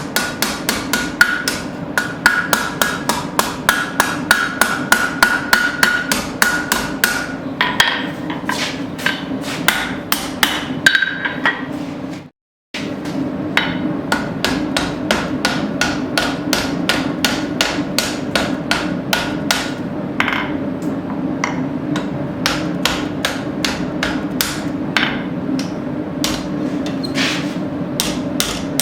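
Blacksmith's hand hammer striking hot square steel stock on an anvil in a steady run of blows, about three a second, with the anvil ringing after the strikes, as a hook bend is shaped to a smooth radius. A steady low hum runs underneath, and the sound drops out for an instant about twelve seconds in.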